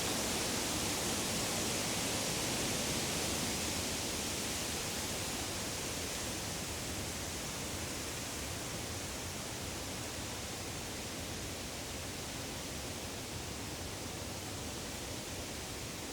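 Woodland ambience: a steady, even rushing noise with no birdsong or distinct events, easing a little in loudness as it goes.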